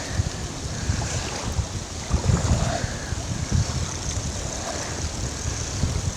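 Strong gusty wind buffeting the microphone in low rumbling gusts, over a steady rush of wind-driven waves on open water.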